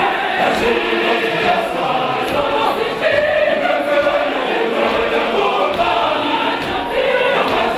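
Church choir singing, many voices holding long chords together.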